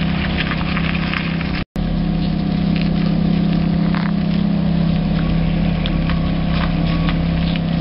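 Lamborghini Gallardo LP 570-4 Superleggera's V10 running at low revs as the car creeps along at walking pace, a steady deep drone. The sound breaks off for a moment just under two seconds in.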